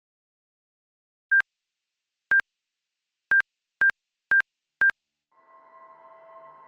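Six short electronic beeps at one high pitch, the first three a second apart, the last three quicker at half-second intervals. Just after the last beep a quiet ambient music drone of held tones fades in.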